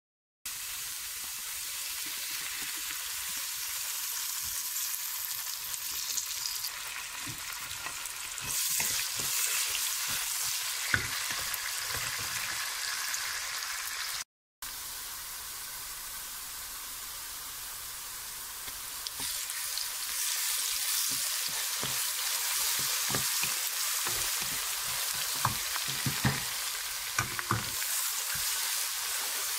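Sliced onions frying in hot oil in a nonstick pot, a steady sizzle as they brown, with scattered knocks and scrapes of stirring against the pan. The sizzle breaks off briefly about halfway through.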